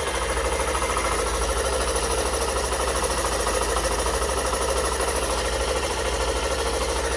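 Hero Super Splendor BS6 single-cylinder engine running steadily and evenly after repair: its cut rocker arm and rocker pin have been replaced and the timing chain refitted, damage blamed on running without enough engine oil.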